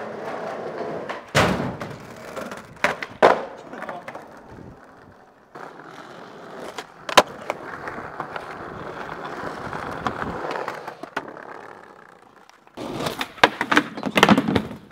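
Skateboard wheels rolling on pavement, broken by sharp clacks and knocks of the board being popped and landing: a few early on, a single loud one around the middle, and a quick cluster near the end.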